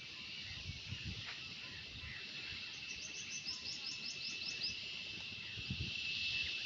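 Steady high insect drone, with a bird singing a rapid run of about a dozen short repeated notes for roughly two seconds midway, and a few soft low thuds.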